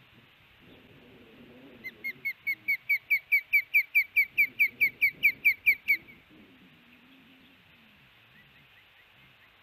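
Adult female osprey giving her alarm call, a rapid series of about twenty whistled notes, about five a second, that grows louder and stops abruptly about six seconds in. A few fainter notes follow near the end. The alarm is raised at a person below the nest, and it makes the chick lie flat.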